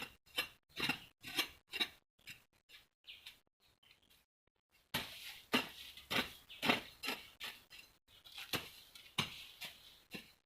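A garden digging tool striking and chopping into the soil in a steady rhythm of about two strokes a second, pausing briefly a couple of seconds in, then resuming.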